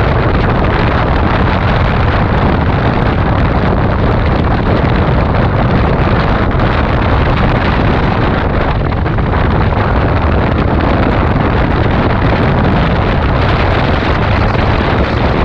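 Heavy wind buffeting on a GoPro Hero 5 Black's built-in microphone while riding at speed, a loud, steady rush with road and engine rumble underneath, the mic overwhelmed by the wind. It cuts off suddenly at the end.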